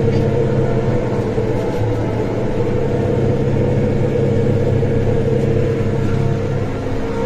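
New Holland TD5.90 tractor's diesel engine pulling a heavy plough under load, running steadily; it eases off slightly near the end.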